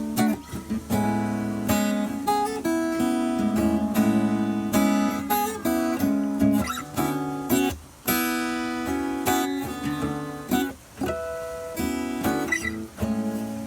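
Acoustic guitar strummed and picked in an instrumental passage, with chords ringing and changing and brief pauses between phrases.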